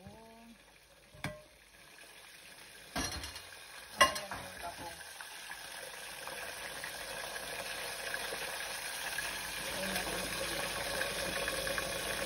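A few sharp clicks and knocks in the first four seconds, the loudest about four seconds in. Then a pot of sliced bamboo shoots boils hard, the bubbling getting steadily louder.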